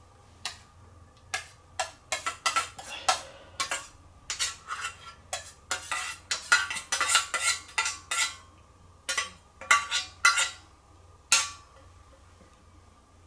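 Metal spoon scraping and clinking against a stainless-steel cooker tray and a ceramic bowl as food is spooned out. It is a busy run of sharp clinks and scrapes, densest in the middle, that stops a couple of seconds before the end.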